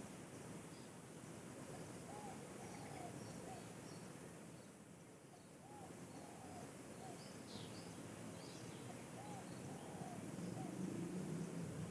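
A bird calling a repeated series of short hooting notes, two or three at a time every few seconds, with faint high chirps from other birds over a steady high insect hiss.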